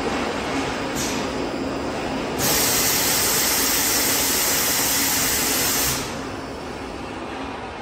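Automatic multi-shaft tape cutting machine running with a steady mechanical hum. A loud hiss joins about two and a half seconds in and cuts off suddenly about six seconds in.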